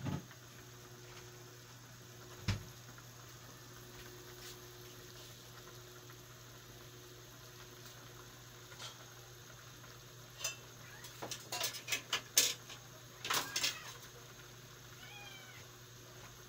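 Pan of pork adobo simmering faintly on a gas burner under a steady low hum, broken by scattered sharp clicks and then a quick cluster of louder clicks and taps about ten to fourteen seconds in. A brief pitched call follows near the end.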